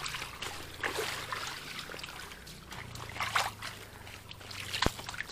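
Water trickling faintly, with a single sharp click near the end.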